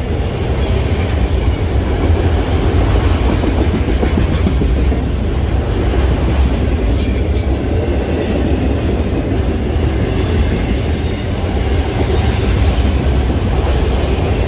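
Autorack freight cars rolling past at speed, a steady loud rumble and clatter of steel wheels on the rails.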